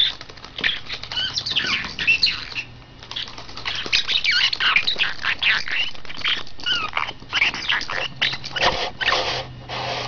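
Small pet parrot chattering and squawking: a rapid, fairly loud run of short chirps and quick rising and falling whistled notes, mixed with scratchy clicks, easing off briefly about three seconds in.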